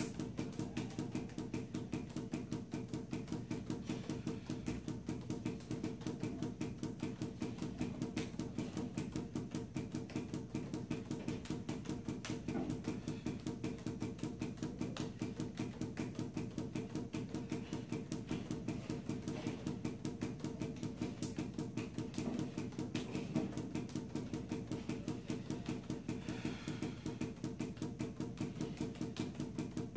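Juggling balls bouncing off a hard tiled floor in a 7-ball force bounce pattern: a fast, even rhythm of knocks, several a second, without a break.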